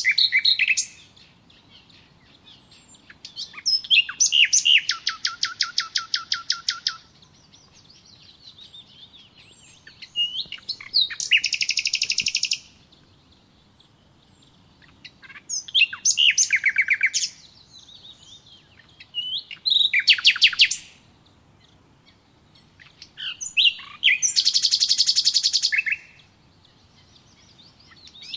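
A songbird singing separate phrases about every four to five seconds, five in all. Each phrase is a few quick high notes followed by a fast trill of rapidly repeated notes.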